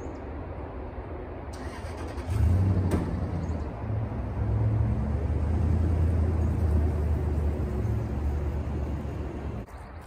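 A Toyota Tundra pickup's V8 engine starts about two seconds in and runs steadily as the truck pulls away, stopping abruptly just before the end.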